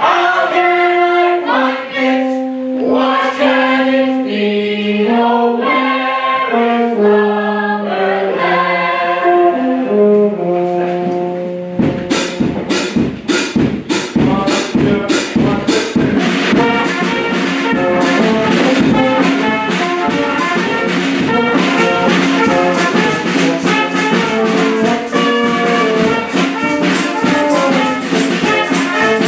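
Live brass band music. A slow melody of held notes plays first; about twelve seconds in, percussion joins with a steady beat and the band plays on together.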